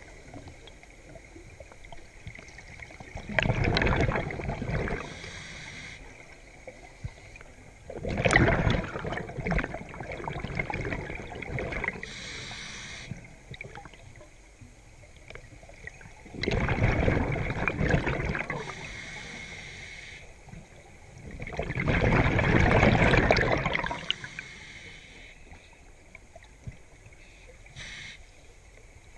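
Scuba regulator breathing underwater: four exhalations, each a rush of bubbles lasting one to two seconds, about every six seconds, with a fainter, higher hiss on the inhales between them.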